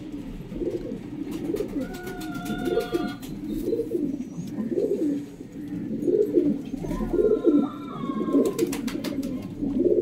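Domestic pigeons cooing, a steady run of low, repeated coos about once a second.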